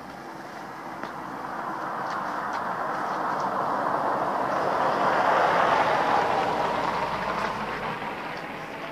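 A vehicle passing by: a steady rush of noise that swells to a peak about five to six seconds in and then fades away.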